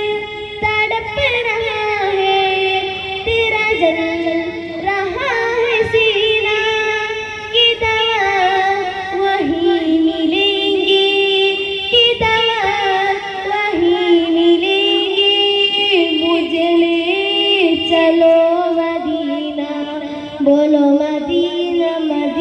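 A boy singing a naat (Urdu devotional song) solo into a microphone, in long drawn-out notes that glide and waver without a break.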